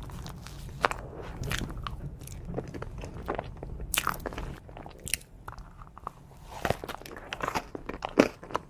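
Close-miked crunching bites and chewing of a chocolate dessert: irregular sharp crunches and crackles, a few at a time, with softer chewing between them.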